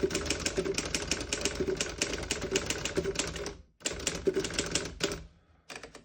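Typing on a 1952 Underwood 11 manual typewriter: a quick, even run of typebar strikes, several a second, with a short pause a little past halfway and a sparser few strokes near the end.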